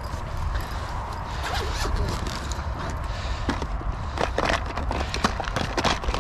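Zip on a fabric tackle rucksack being pulled open, then hands rummaging among plastic tackle boxes and gear inside, with a run of small clicks and knocks from about halfway. A low rumble runs underneath.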